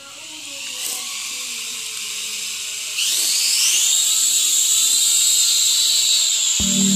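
Syma X5HW mini quadcopter's small brushed motors and propellers whining as it spins up on the floor. About three seconds in the whine jumps higher and louder as the throttle rises and the drone lifts off, then holds steady in flight. Background music comes in near the end.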